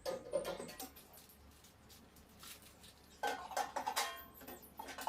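Rustling and clattering of items being handled during unboxing, in two short bursts, one at the start and one about three seconds in.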